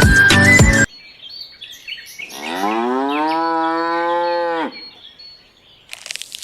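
A cow gives one long moo of about two seconds, rising in pitch and then held. Background music cuts off about a second before it, and faint bird chirps follow near the end.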